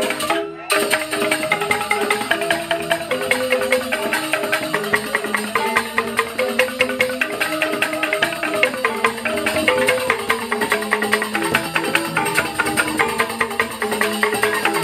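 Joged Bumbung gamelan music: bamboo xylophones play fast, dense interlocking strikes over a repeating melody. The sound briefly drops out just after the start.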